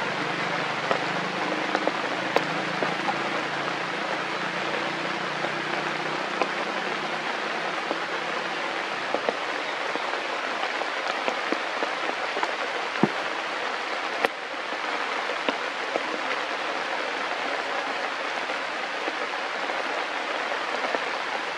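Steady rain falling on forest foliage, with scattered louder drop ticks.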